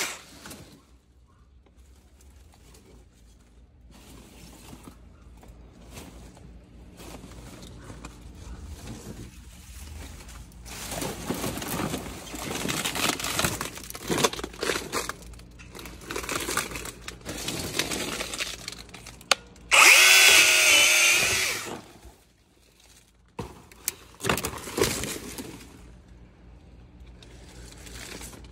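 Battery-powered Vanpore mini chainsaw cutting palm frond stalks in short runs, its electric motor whining as it spins up, with the chain rasping through the fibrous stalks between runs. The loudest run of the motor comes about two-thirds of the way through.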